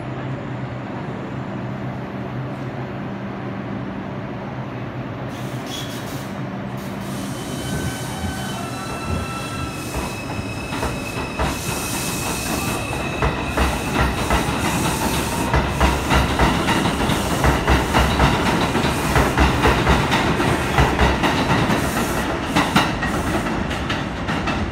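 R142 subway train standing with a steady hum, then pulling out. Its AC propulsion whines in a series of rising steps as it accelerates, and the wheels clatter over rail joints in a growing rumble that eases off near the end as the train draws away.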